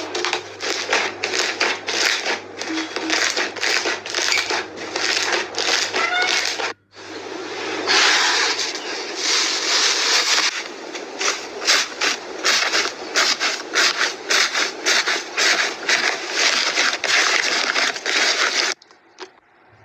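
Hands stretching and folding slime, giving a dense run of wet crackles and pops. After a brief break about seven seconds in, hands press and squeeze foam-bead slime (floam) in a bowl, crunching and crackling. The sound drops off sharply just before the end.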